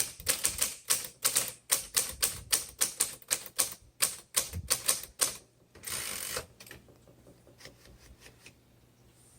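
1961 Underwood Five manual typewriter being typed on: a quick run of sharp keystrokes, about three to four a second, for some five seconds. A short rasp follows about six seconds in, then a few fainter clicks.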